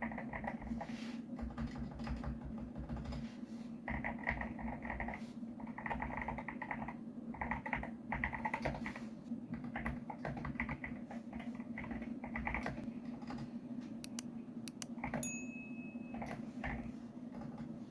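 Typing on a custom mechanical keyboard: runs of rapid key clicks in bursts of about a second, over a steady low hum. A brief high tone sounds about fifteen seconds in.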